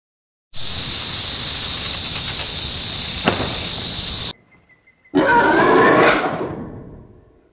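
Cartoon sound effects: a steady hiss-like sound lasting nearly four seconds with one sharp click near its end, then, after a brief gap, a louder warbling sound that fades out over about two seconds.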